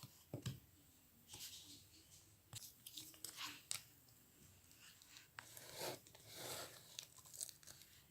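Slime being pressed and stretched by hand, giving irregular soft crackles, pops and clicks with a few longer squelches.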